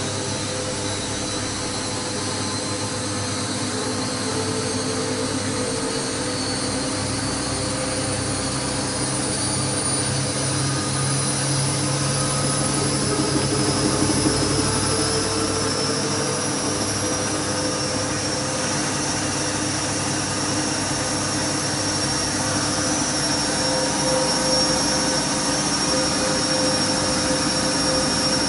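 Siemens 6127 front-loading washing machine on its final spin: motor and drum running fast with a steady whine, getting a little louder over the first half. The machine has shaken on its spin since being moved and re-levelled.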